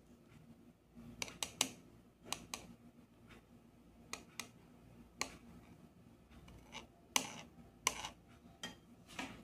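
Metal spoon clinking and tapping against a glass while ice cream is spooned into it: about a dozen light, irregular clicks, loudest about a second and a half in and again about seven seconds in.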